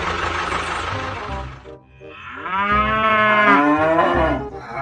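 A steady engine-like noise fades out in the first two seconds, then a cow moos once, a long call of about two seconds that rises and falls in pitch.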